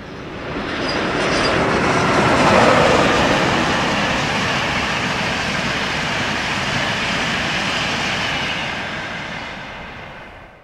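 InterCity 225 express, a Class 91 electric locomotive with Mk 4 coaches, passing at speed. A loud rush of wheels and air rises quickly to a peak a couple of seconds in and holds steady as the coaches go by. It then fades and cuts off abruptly near the end.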